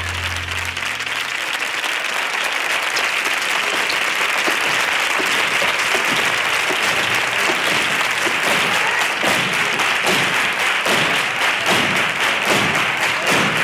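The song's last held note dies away about a second in, and a large studio audience's applause builds and grows louder.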